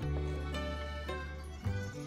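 Background music: a melody over a low held bass note, which moves to a new note about one and a half seconds in.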